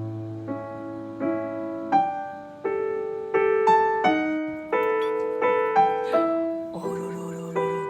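Background piano music: a gentle melody of single struck notes, each fading after it is played.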